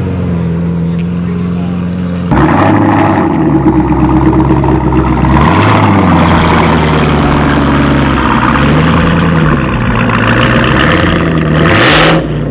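Car engine running, then from about two seconds in the louder supercharged V8 of a Chevrolet Camaro ZL1 1LE, its pitch rising and falling several times as it is revved and pulls away.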